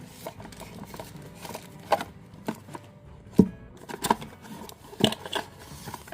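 Handling of a product box and its packaging during unboxing: scattered short clicks and knocks, the loudest about three and a half seconds in.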